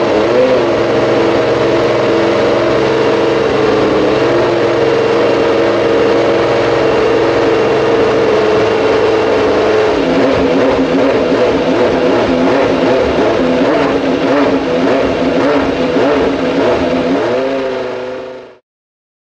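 Judd racing engine of a formula car running at idle, a steady pitched drone with a small blip at the start. About ten seconds in the idle speed starts to waver up and down, and near the end a short rev blip rises and falls before the sound cuts off.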